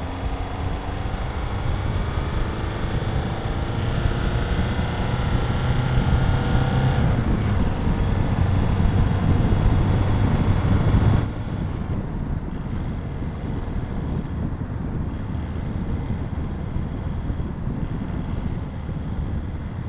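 Skoda Octavia's 1.6 TDI CAYC four-cylinder common-rail diesel, heard from under the bonnet while driving: the engine note rises steadily in pitch as it accelerates for the first several seconds and stays loud. About eleven seconds in it drops suddenly to a quieter, steady run.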